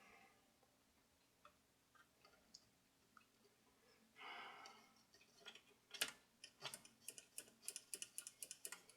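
Faint scattered clicks, a short rustle about four seconds in, then a rapid run of light ticks, about four a second, as small parts of the record player's mechanism are handled.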